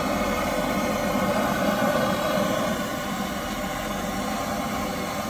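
Handheld gas torch blowing a steady flame up into the bottom of a charcoal chimney starter, lighting the brown paper packed under the charcoal.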